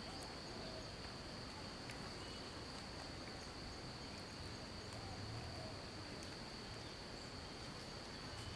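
Steady high-pitched insect drone, one unbroken tone throughout, over a faint low rumble.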